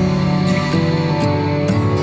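Slow instrumental background music, with held notes that move to a new pitch about every half second.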